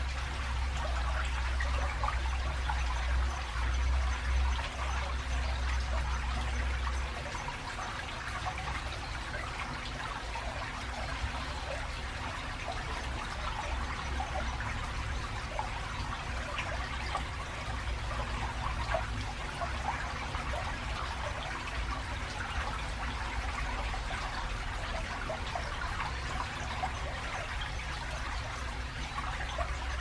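Shallow stream trickling and babbling over stones and debris between concrete channel walls. Under it runs a low rumble of traffic from a busy road bridge over the river, heavier for the first seven seconds or so, then softer.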